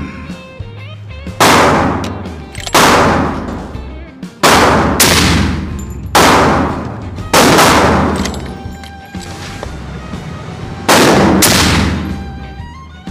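Rifle gunshots echoing in an indoor range: about eight sharp reports, some in quick pairs, each ringing out for about a second. Among them are shots from a suppressed Seekins Havak PH2 rifle in .300 PRC.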